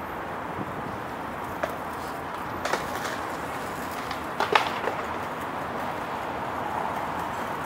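Outdoor ambience of a large city square: a steady wash of distant city noise with a few short sharp knocks, the loudest about four and a half seconds in.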